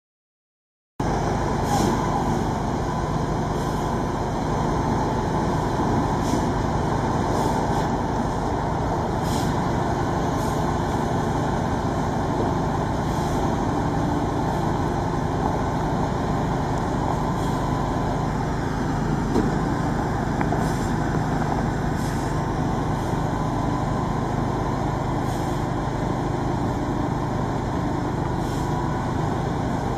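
Heavy truck crane's engine running steadily, with sharp clicks every second or two.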